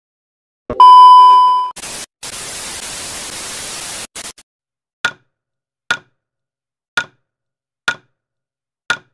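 Edited sound effects: a loud electronic beep lasting about a second, then about two seconds of static hiss, then five sharp ticks evenly spaced about a second apart.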